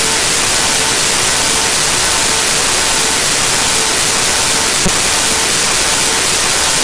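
Loud, steady static hiss at an unchanging level, like white noise, with one faint click about five seconds in; it stands in for the programme's sound, an audio fault rather than anything in the kitchen.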